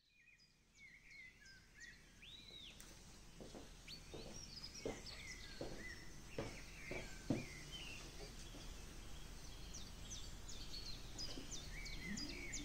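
Faint birds chirping and singing, fading in from silence, with a run of about seven soft footsteps on a wooden floor, evenly paced, between about three and a half and seven and a half seconds in.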